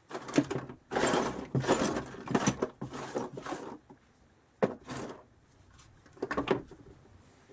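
Hands rummaging through a box of old motorcycle parts: metal pieces and small hardware clattering and shifting in irregular bursts for the first few seconds, then a sharp knock and two shorter bursts of handling.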